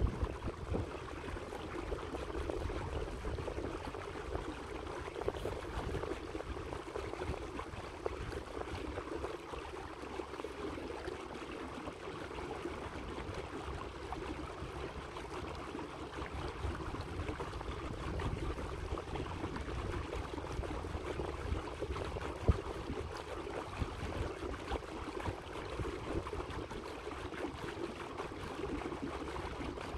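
Steady rushing and lapping of water against the hull of a small electric boat under way, with a low rumble that comes and goes. No motor hum stands out.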